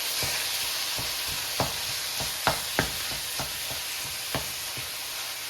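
Beef and onions sizzling in oil in a pot, with a steady hiss. A utensil knocks and scrapes against the pot about a dozen times at an uneven pace as the meat is stirred and broken up.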